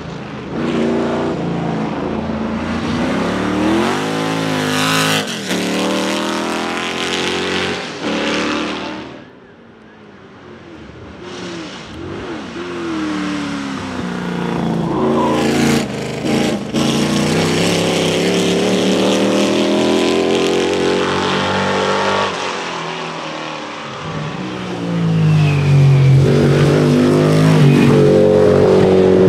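Lola T70 Mk3 Coupé's Chevrolet V8 racing engine accelerating hard through the gears and passing by. The note rises again and again with short breaks at the gear changes, fades briefly about a third of the way through, then builds to its loudest near the end.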